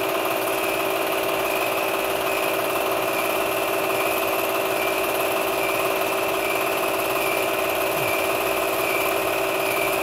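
8mm film projector running: a steady mechanical whir and hum that holds constant without change.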